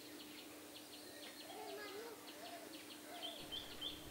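Faint outdoor ambience of small birds chirping in quick short notes, with a few lower arching calls in the middle, over a steady faint hum.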